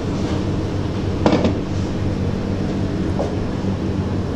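A machine's motor humming steadily, with a short clatter about a second in.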